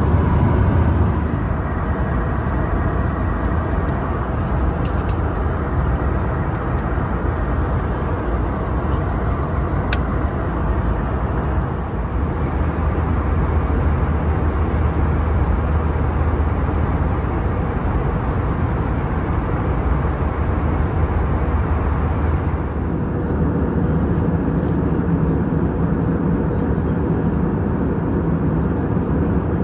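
Steady in-flight cabin noise of an Airbus A321 airliner, the low drone of the jet engines and air rushing past the fuselage. It shifts slightly in tone a couple of times, and a few faint clicks come in the first third.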